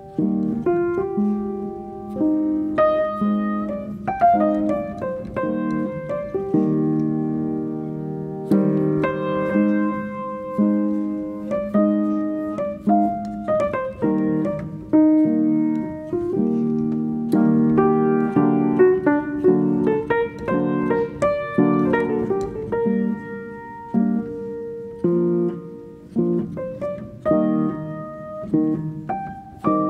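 Background piano music: a slow melody with chords, notes struck and left to ring.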